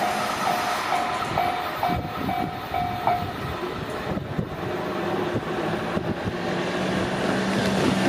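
Japanese level-crossing warning bell ringing in quick repeated dings, about two a second, over the fading rumble of a train going away; the bell stops about three seconds in. Later a car's engine hum grows as it comes up to the crossing.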